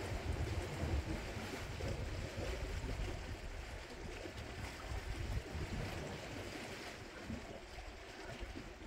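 Sea waves washing and breaking against the rocks below, a steady rushing noise, with wind gusting on the microphone as an uneven low rumble.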